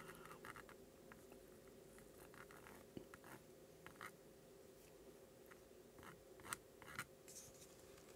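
Near silence: faint room hum with a few soft scratches and small ticks as an SH72 soldering iron's tip is worked along a circuit board's edge-connector pads.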